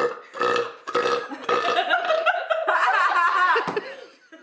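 Deliberate, forced belching in a burping contest: a few short burps, then one long drawn-out belch of about two seconds with a wavering pitch.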